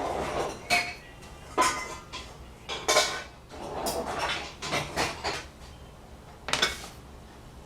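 Kitchen utensils and dishes clattering: a string of irregular metal clinks, knocks and scrapes, some ringing briefly, as a kitchen tool is fetched and handled.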